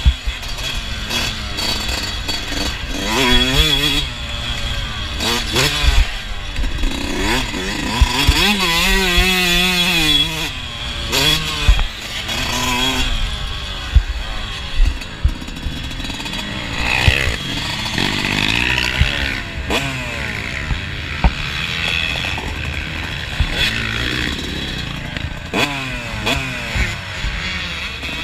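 Dirt bike engine being ridden hard on a motocross track, its pitch rising and falling over and over as it revs up and shifts, with sharp knocks scattered through.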